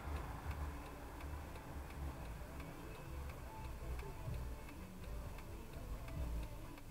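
A car's turn-signal indicator ticking steadily while the car waits at a red light, over the low hum of the idling engine.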